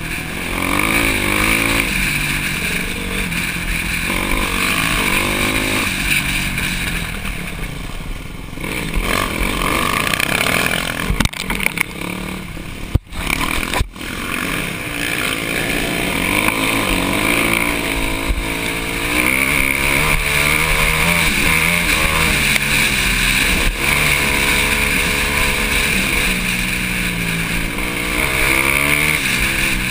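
Dirt bike engine ridden hard on a trail, the revs climbing and falling repeatedly with the throttle and gear changes. A few sharp knocks come around the middle, and the sound cuts out briefly twice.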